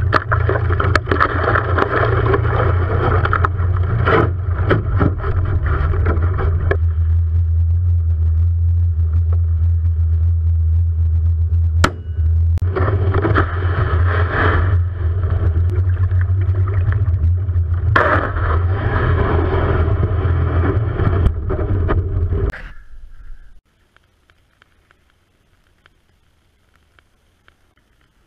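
A boat motor running steadily with a low hum, with stretches of louder rushing noise. It cuts off about 22 seconds in.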